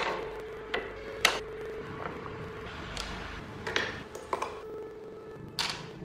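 Carved wooden model-car parts knocked together and set down on a tabletop: about six sharp wooden clacks at uneven intervals.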